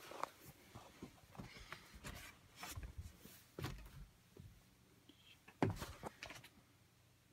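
A person moving through an attic: irregular light knocks and thumps on the wooden framing with rustling in between, the loudest thump about five and a half seconds in. A faint steady low hum runs underneath.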